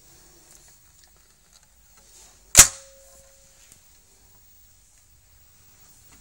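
One sharp, very loud crack about two and a half seconds in, followed by a brief ringing tone; otherwise only faint handling noises.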